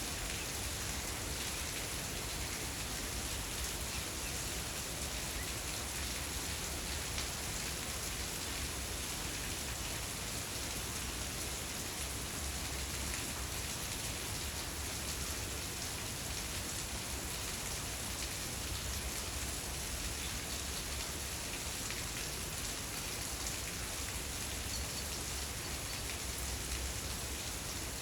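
Steady rain falling and pattering on surfaces, an even hiss with fine scattered drops.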